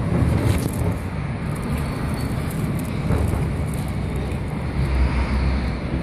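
Steady street traffic noise with wind rumbling on the microphone.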